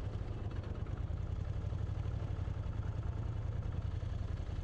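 Moto Guzzi motorcycle's transverse V-twin engine running steadily at low speed, an even low throb.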